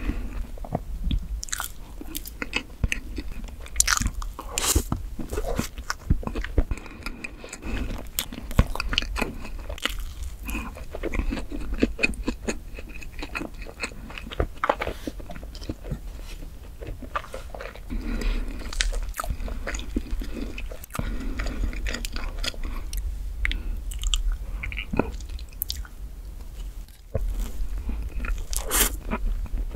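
Close-miked chewing of chocolate whipped-cream cake, with many short, sharp wet mouth clicks as the cake and cream are bitten and worked in the mouth.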